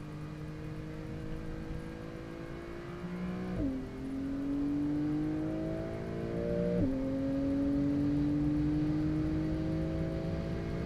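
Porsche 911 (992) flat-six engine heard from inside the cabin under hard acceleration: the revs climb steadily, fall sharply at an upshift about a third of the way in, climb again, and fall at a second upshift about two thirds of the way in.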